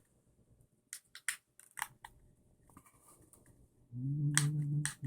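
A handful of sharp plastic-and-metal clicks as small screws and a screwdriver are handled on an RC buggy's chassis, most of them in a quick cluster in the first couple of seconds. About four seconds in, a man's voice hums or mumbles for about a second.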